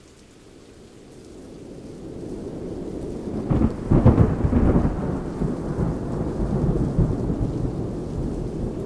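Thunderstorm: steady rain that swells in over the first few seconds, then a loud crack of thunder about three and a half seconds in that rolls on as a rumble under the rain.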